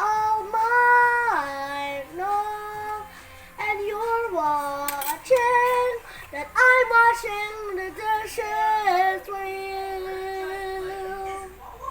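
A young child singing long drawn-out notes that glide up and down between pitches, ending on one long held note near the end.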